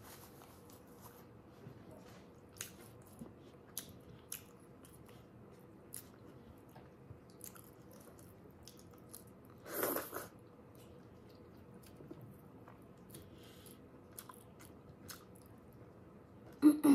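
Close-up mouth sounds of someone eating with their hand: chewing with many short wet clicks and smacks, and louder bursts about ten seconds in and just before the end.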